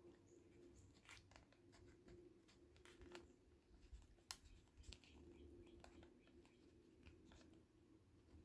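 Near silence with faint, scattered small clicks and taps of wax-sealing tools and supplies being handled at a desk, over a faint low hum of room tone.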